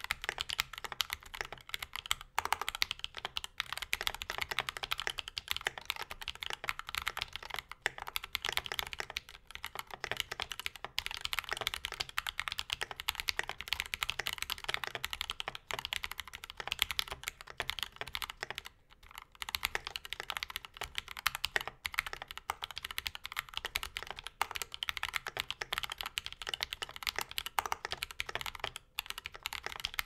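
Steady fast typing on a Freebird60 mechanical keyboard with Gateron Milky Yellow CAP V2 linear switches on a brass plate without plate foam, under mStone Cherry-profile keycaps: a dense stream of key clacks with a short pause about 19 seconds in.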